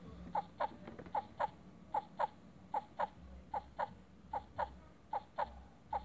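A plush lamb toy's built-in sound module playing a recorded sobbing cry, set off by a squeeze. Short falling sobs come in pairs, about one pair every 0.8 seconds.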